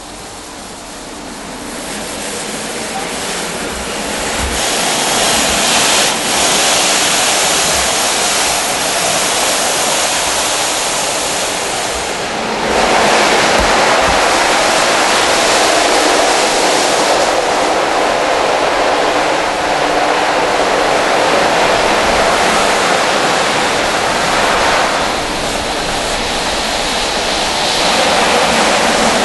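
Automatic car wash machinery running: a loud, steady rushing hiss that builds over the first few seconds and grows louder about twelve seconds in.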